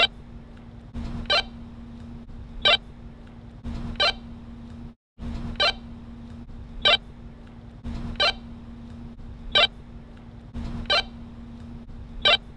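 Walkie-talkie radio sound effect: a steady hum and hiss of static, broken by a short, sharp, high chirp about every 1.3 seconds in an even, repeating pattern. The sound cuts out completely for a moment about five seconds in.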